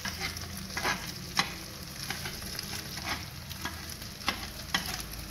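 Metal utensil tapping and scraping against a steel frying pan as scrambled eggs are chopped into pieces, with irregular sharp clicks over a steady sizzle of the eggs frying.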